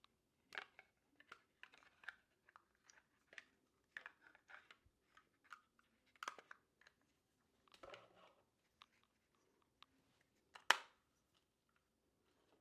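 Faint handling noises as a small camera mount and cover are put back into their packaging: scattered light clicks and rustles, with one sharp click near the end.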